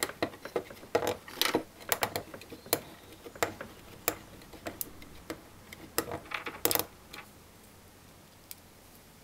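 Irregular sharp clicks and light knocks from crimping a plastic IDC connector onto a flat ribbon cable in a small metal bench vise. The clicks come in small clusters and die away about seven seconds in.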